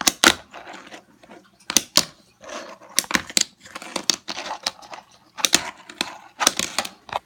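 Handling noise: an irregular string of sharp clicks and knocks with scratchy rubbing between them, from a fingerboard and the phone recording it being handled close to the microphone.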